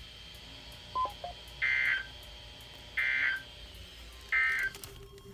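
NOAA Weather Radio's EAS end-of-message signal: three short bursts of buzzy two-tone digital data, each about a third of a second and about 1.3 s apart. They mark the end of a severe thunderstorm warning broadcast. A brief blip sounds about a second in.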